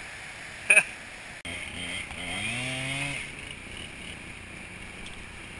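Chainsaw cutting into a large redwood log: its engine revs up about a second and a half in, runs at high speed for a little over a second, then eases back to a lower, steadier run. Before it, a steady hiss of wind and surf, with one short loud voice-like sound under a second in.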